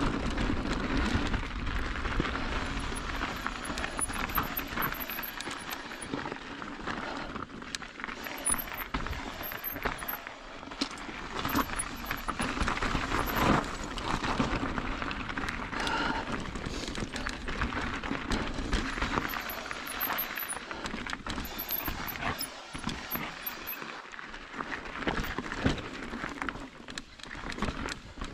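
Mountain bike riding a dirt singletrack: tyres crunching over dirt and stones, with frequent short knocks and rattles from the bike over bumps and wind on the microphone.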